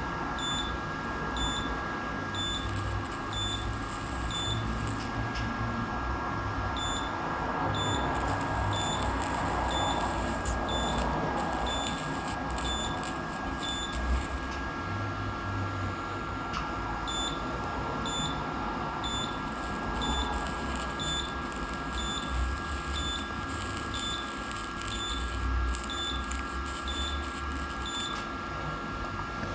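Dental equipment in a treatment room: runs of short, high beeps at about one and a half a second over a steady electrical hum, with long stretches of hissing air.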